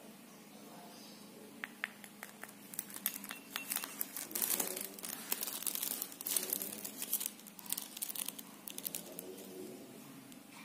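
Crinkling and crumpling handling noise with scattered light clicks, starting about two seconds in and loudest in the middle, as something thin and crackly is handled by hand.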